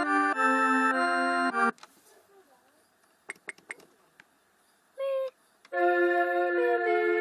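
Casio electronic keyboard playing a tune in steady held chords. The music stops abruptly about 1.7 s in, leaving a few faint clicks and one brief tone. It starts up again about six seconds in.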